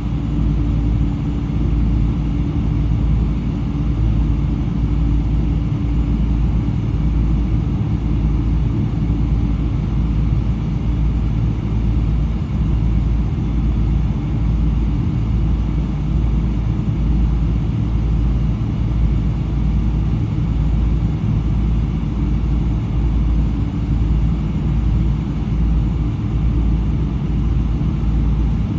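Steady low rumble of a Boeing 777-300's Rolls-Royce Trent 800 jet engines and airflow, heard inside the cabin at a window seat, with a faint hum that fades out about ten seconds in.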